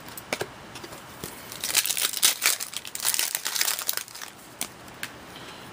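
Foil wrapper of a 2012-13 Fleer Retro hockey card pack being torn open and crinkled by hand: a few light clicks, then a dense run of crinkling from about a second and a half in to about four and a half seconds.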